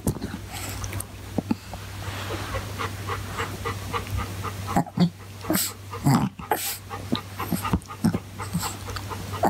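Chihuahua making short dog sounds while playing with a plush toy, with a string of brief sharp sounds that cluster from about five to seven seconds in.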